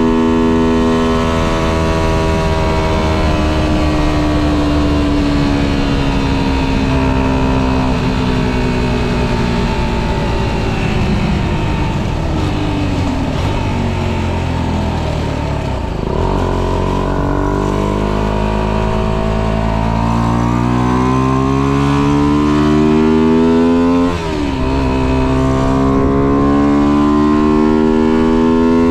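Tuned 125cc engine with aftermarket intake and exhaust, heard from the bike while riding. The engine note falls steadily as it slows, then climbs as it accelerates, dipping briefly once before rising again.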